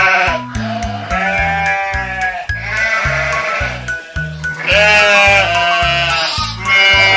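Pronghorn antelope calling in a series of bleats, each about a second long, repeating every second or two, over background music with a steady bass line.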